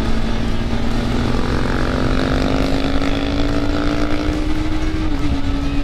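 Honda CB300F's single-cylinder engine running at cruising speed, its note rising slowly and dipping slightly about five seconds in, with wind rushing over the microphone.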